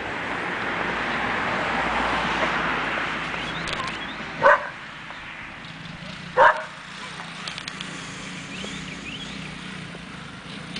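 A dog barks twice, about two seconds apart, over a steady rushing background noise that is louder in the first few seconds.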